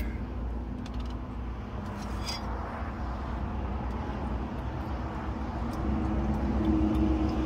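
Steady outdoor rumble of wind and distant noise, with a few small clicks in the first couple of seconds as a plastic makgeolli bottle is uncapped. Makgeolli is then poured from the bottle into a brass bowl.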